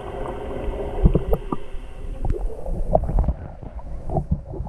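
Swimming-pool water sloshing and gurgling against a GoPro held underwater, muffled, with scattered low knocks and clicks. The highs drop away further for the last second or so.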